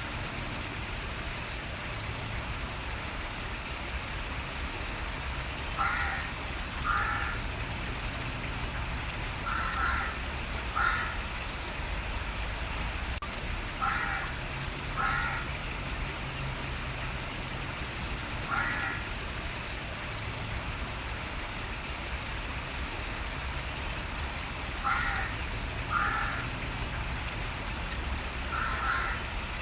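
A bird giving short calls, mostly in pairs about a second apart, repeated every few seconds over the steady rush of running water.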